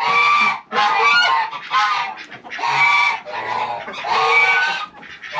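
Geese honking loudly and repeatedly, a run of short calls about one a second.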